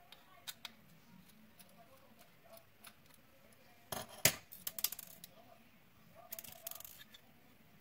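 Light clicks and clatter of small hard parts and tools being handled on a workbench: a few single clicks, then a loud click with a quick run of rattling clicks about four seconds in, and another run of clicks a couple of seconds later.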